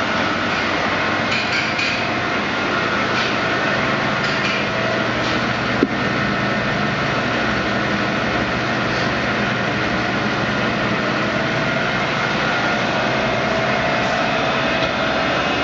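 Steady running machinery: an even mechanical noise with a few high, held whining tones and a single sharp click about six seconds in.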